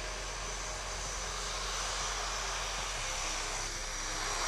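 de Havilland Canada DHC-6 Twin Otter's PT6A turboprop engines running as it comes in low, a steady propeller noise with a thin high turbine whine. It grows louder near the end as the plane touches down on its skis in the snow.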